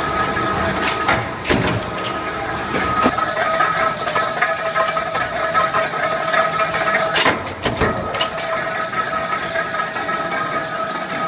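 Mechanical stamping press running in a sheet-metal shop: a steady machine hum with a held high tone, broken by several sharp metal clanks at uneven intervals.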